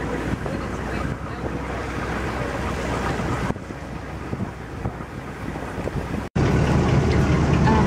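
Wake water rushing and splashing along the hull of a Mekong long boat under way, over a low steady engine drone, with wind on the microphone. The sound breaks off about six seconds in and comes back as a louder low engine rumble.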